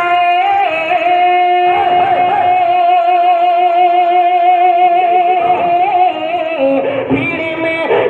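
A man singing a naat unaccompanied into a handheld microphone. After a short melodic turn he holds one long note with a wavering vibrato for about five seconds, then slides down into a new phrase near the end.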